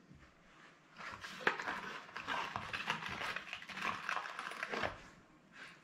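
Hands rummaging among small hardware for washers: about four seconds of irregular rustling with light clicks, starting about a second in.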